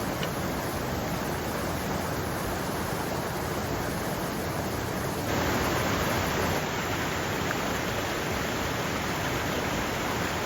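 Waterfall rushing in a steady, even roar of falling water, growing slightly louder about halfway through.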